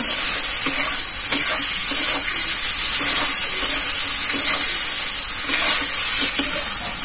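Vegetables and sauces sizzling in a hot metal wok while a metal spatula stirs them, with irregular clicks and scrapes of the spatula against the pan over a steady frying hiss.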